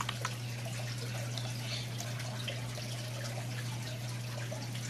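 Steady background room noise: a constant low hum with an even hiss over it, and a couple of faint clicks near the start.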